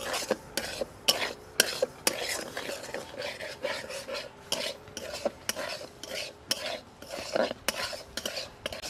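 Metal spatula stirring and scraping semolina as it roasts in ghee in a metal kadai: repeated irregular scrapes and clinks against the pan, two or three a second.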